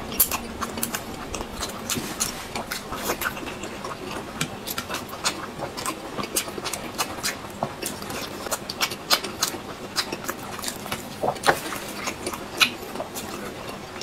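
Close-miked eating sounds from two people eating boiled dumplings: chewing and wet mouth clicks and smacks, irregular and several a second.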